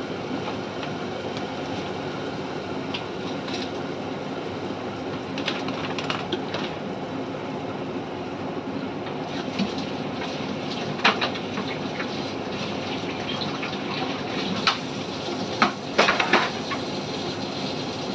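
Curry simmering in a covered aluminium pot on the stove: a steady hiss, with a few sharp clicks in the second half.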